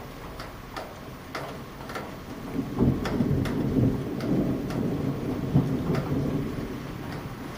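Thunder rumbling low, swelling about three seconds in and dying away near the end, over steady rain with scattered close drops ticking.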